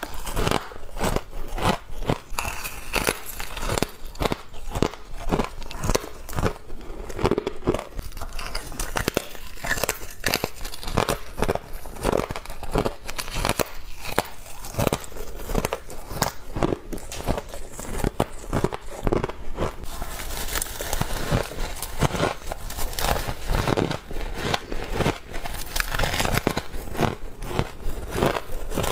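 Close-up biting and chewing of humidifier frost: a continuous run of crisp, crackling crunches, bite after bite.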